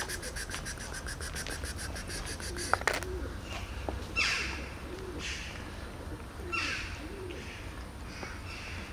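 Birds calling: a fast, even trill for the first three seconds, then a few short chirps sliding downward, over soft low calls that recur throughout. A steady low rumble runs underneath.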